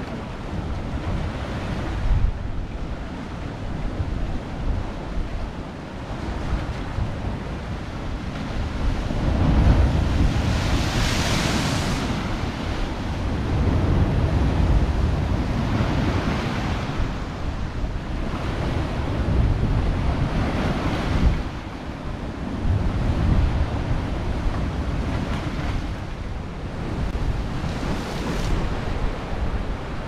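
Baltic Sea waves washing in and breaking among large stone blocks of a shoreline revetment, surging every few seconds. Wind rumbles on the microphone throughout.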